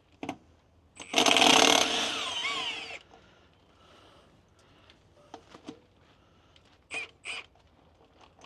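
Impact wrench hammering on a bolt in a burst of about two seconds, with an improvised socket that doesn't quite fit. A few short knocks follow later.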